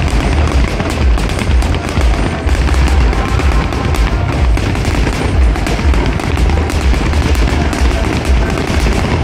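Fireworks display crackling and banging densely, many reports a second, over loud music with a heavy bass.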